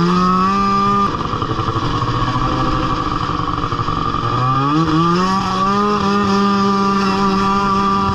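Snowmobile engine running hard as the machine pulls away. Its pitch sags about a second in, climbs back up around four to five seconds in, and then holds steady at speed.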